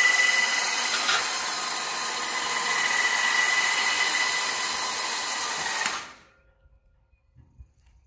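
A Badlands 1,500 lb 120-volt electric winch running under load, reeling in its cable to hoist a heavy mower, with a steady high whine over the motor noise. It stops suddenly about six seconds in.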